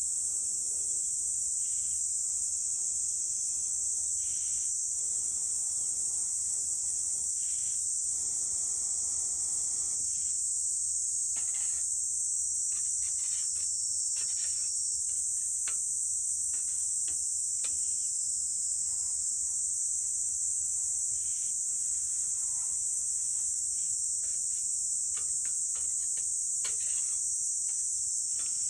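Steady, high-pitched chorus of summer insects, unbroken and the loudest sound, with faint scattered ticks and crackles beneath it.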